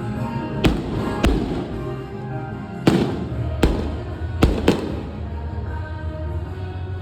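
Aerial firework shells bursting: six sharp bangs over about four seconds, the last two close together, with music playing throughout.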